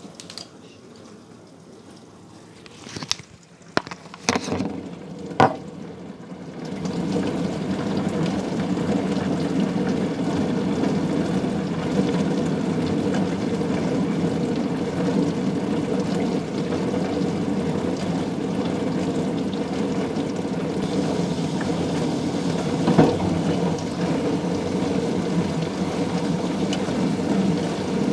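Miele dishwasher starting a wash programme: a few clicks, then from about six seconds in a steady rush of water sloshing and spraying inside the tub.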